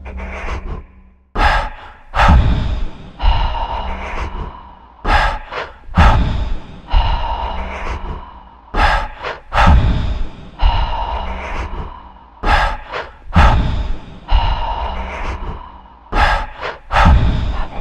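A person's loud, sharp breaths and gasps, one every second or so at an uneven pace, each fading away, over a faint held music tone.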